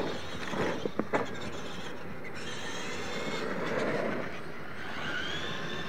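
Electric RC monster trucks of the retro Clod Buster class running on a dirt track: a steady motor and gear whine with tyre noise. A few sharp knocks come in the first second or so as a truck goes over a jump, and the whine rises and falls near the end.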